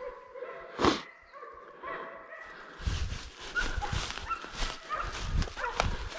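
Hunting dogs barking and yelping in short pitched calls during a wild boar hunt, with a sharp snap about a second in. From about three seconds in, footsteps crunch through dry leaf litter under the dogs' short yips.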